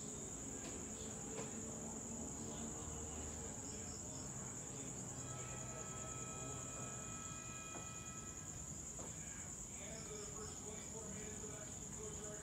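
Crickets chirping in a steady, unbroken high-pitched trill.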